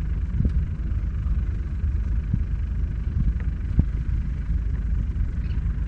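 Wind buffeting the microphone with a steady, fluttering low rumble, broken by a few short low thumps.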